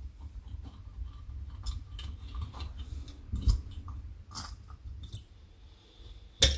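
Small clicks and scrapes of a screwdriver and metal parts as the float-bowl screws of an Amal Concentric Premier carburettor are undone and the bowl is taken off, with one sharp click near the end. A low steady hum runs underneath.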